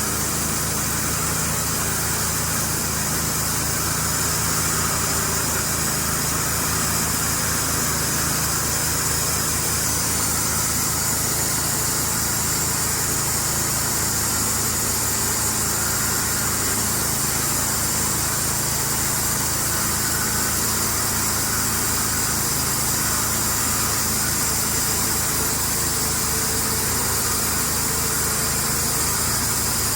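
Sawmill running: its engine drones steadily, with an even high hiss over it and no pauses or changes.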